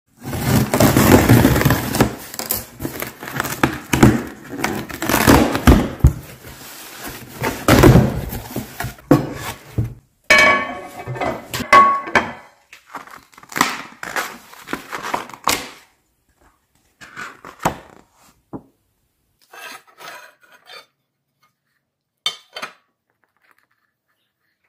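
Unboxing noise: scissors cutting the box tape, and cardboard and packaging scraping and rustling for about the first ten seconds. Then a Lodge cast iron griddle is handled on a stone counter, with clinks and thunks, and the handling sounds grow sparser and quieter toward the end.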